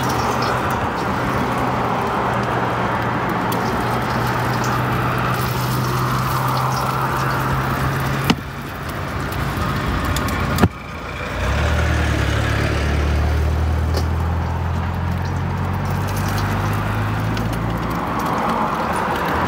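Steady mechanical running noise with a low hum, broken by two sharp clicks about eight and ten seconds in; after a brief dip the hum comes back lower and stronger.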